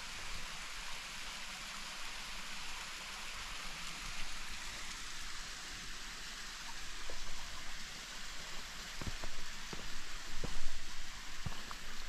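Steady hiss of a waterfall's falling water. From about nine seconds in, footsteps sound on a rocky dirt path.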